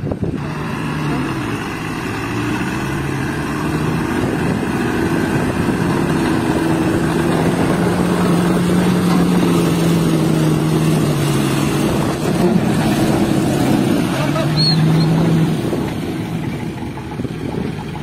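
Heavy truck's diesel engine working under load as it hauls a concrete bridge girder on a long trailer through mud, its pitch rising and easing a few times, then dropping back somewhat near the end.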